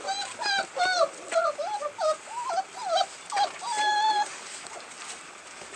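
American bulldog puppy whining and yelping: a quick string of short high cries, about three a second, each bending up and down in pitch. The last is one longer, steady whine, a little past halfway, after which the cries stop.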